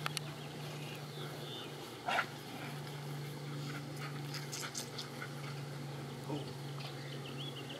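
Faint sounds of a pack of dogs moving about close by, over a low steady hum, with a single sharp knock about two seconds in.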